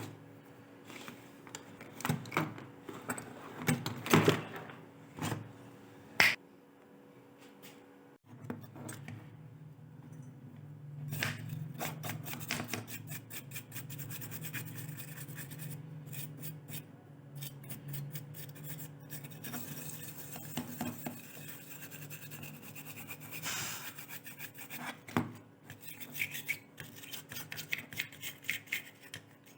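Clicks, knocks and rubbing from tools and parts being handled at a workbench. A low steady hum sets in about eight seconds in.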